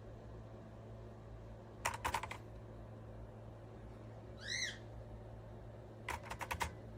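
Keystrokes on a Keychron C2 mechanical keyboard with brown switches: a quick run of four or five key clicks about two seconds in and another run of about six near the end. A single short, high chirp sounds between them, and a steady low electrical hum runs underneath.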